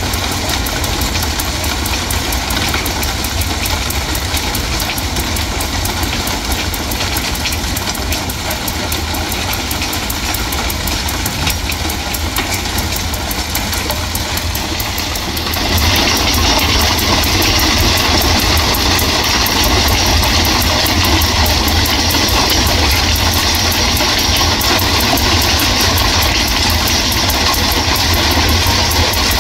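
Ballast regulator working along railway track: its diesel engine runs steadily while the rotating sweeper brush churns and flings ballast stones off the sleepers with a gritty rushing noise. About halfway through the rush grows louder as the machine comes closer.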